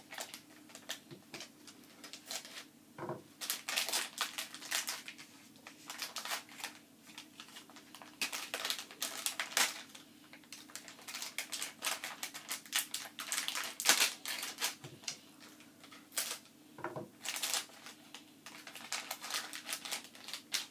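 Foil blind-bag packet crinkling and crackling as it is handled and torn open by hand: an irregular run of sharp crackles and clicks.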